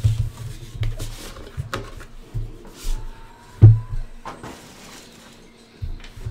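Hands sliding a metal trading-card tin out of its cardboard box sleeve and setting it on a table: scattered rubbing and knocks, the loudest knock a little past halfway.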